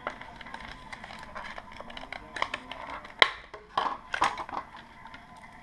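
Clear plastic packaging crinkling and rustling as an aluminium-bracelet watch is handled out of its sleeve. A sharp click comes about three seconds in, followed a second later by a quick flurry of crackles and light metallic clicks from the bracelet links.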